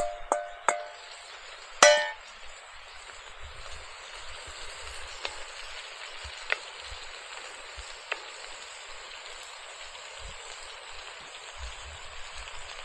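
Food sizzling steadily in a hot cast-iron Dutch oven, with a few ringing metal clangs in the first two seconds, the loudest about two seconds in, and a few single pops later.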